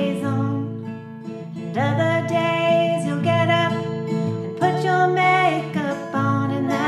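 Slow acoustic guitar song: the guitar plucked and strummed under a woman's sung melody, with held, wavering notes about two and five seconds in.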